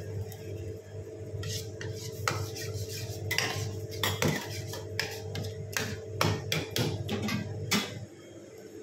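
Metal ladle knocking and scraping against a wok as thick tomato sauce is stirred: irregular clinks for several seconds that stop shortly before the end, over a steady low hum.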